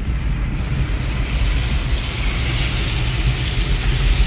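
Steady rumble and hiss of a car moving along a road, heard from inside the cabin: tyre and engine drone with wind noise.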